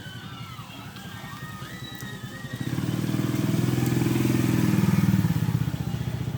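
A small engine running with a rapid low pulse, growing much louder about two and a half seconds in, then easing slightly.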